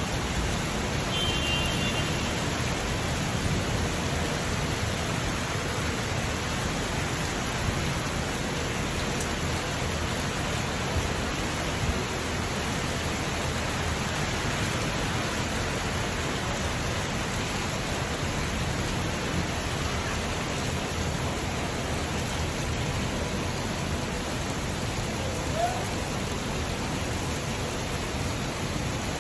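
Rain falling steadily, an even hiss, with traffic on wet roads beneath it.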